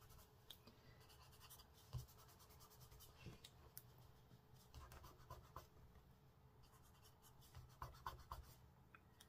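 Faint, scratchy short strokes of a pastel pencil shading on card, with one soft knock about two seconds in.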